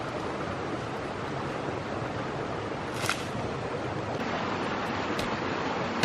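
Steady rushing of a nearby mountain river and waterfall, with a few short sharp snaps, the loudest about halfway through and another at the very end.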